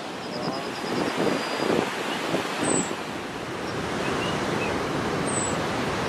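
Waterfall: a steady rush of water falling onto rocks.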